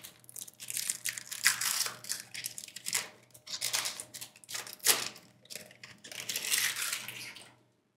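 Foil wrapper of a trading-card booster pack crinkling and tearing in the hands as it is pulled open, in irregular rustles that stop shortly before the end.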